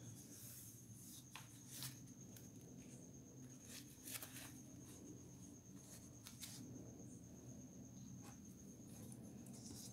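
Near silence: room tone with a low hum and a faint steady high-pitched whine, broken by a few faint soft clicks.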